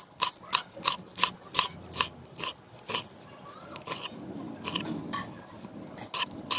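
Knife chopping on a cutting board: a steady run of short, sharp cuts, about two to three a second, slowing a little in the middle.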